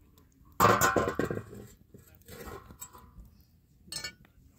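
Iron saj griddle set down over the wood fire on the stone hearth: a loud metallic clang about half a second in, with ringing that dies away over about a second. Quieter scraping follows, and a short sharp knock comes near the end.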